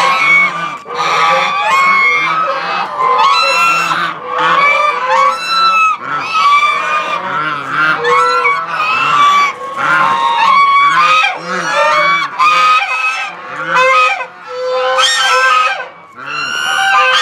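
A flock of domestic Chinese geese honking loudly at close range, many calls overlapping and repeating without a break.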